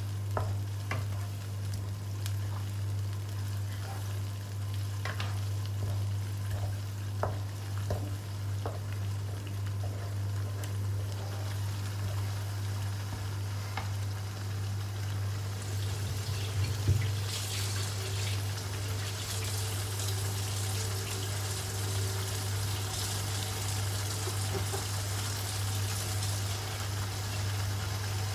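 Red chili paste (sambal) frying in a wok over a gas flame. A wooden spatula stirs and knocks against the pan in the first half. Then the paste sizzles on its own, louder in the second half, over a steady low hum.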